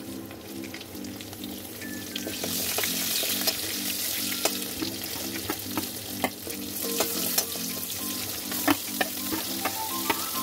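Garlic, chilli, ginger, onions, then capsicum and carrots sizzling as they drop into hot oil in a metal wok. The sizzle grows about two seconds in, with scattered sharp clicks that come more often near the end.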